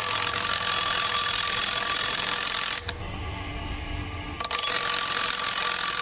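Bench grinder wheel grinding away the steel rivet on a seat-belt retractor, to free the pretensioner so its jammed steel balls can be taken out. Grinding runs steadily over the motor's whine, breaks off for about a second and a half in the middle leaving only the motor hum, then starts again.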